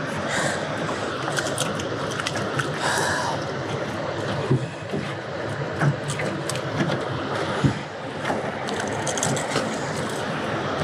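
Steady rush of water pouring through a dam's open spillway gates, with scattered clicks and knocks from a fishing lure, pliers and gear being handled in an aluminium boat.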